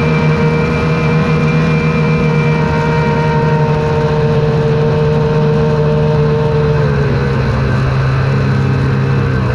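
Snowmobile engine running steadily under way along a snow trail, its pitch dropping slightly about seven seconds in as the throttle eases off.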